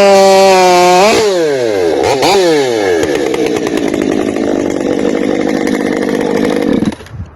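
Gas chainsaw held at high revs, its pitch sagging slightly, as in the end of a cut through a poplar log. The throttle is then released and blipped twice, the saw runs at a low, rough idle, and the sound stops abruptly near the end.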